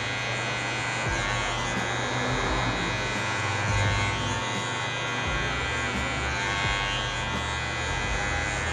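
Cordless hair clipper running with a steady buzz as it is passed over the short hair of a fade at the nape, blending the line between two cut lengths.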